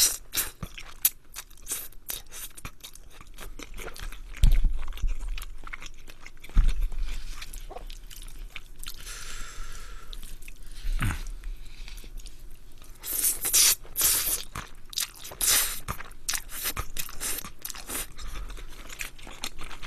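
Close-miked eating sounds: spaghetti slurped and chewed, with many short wet smacks and clicks of the mouth. The loudest cluster of slurping and smacking comes about 13 to 16 seconds in.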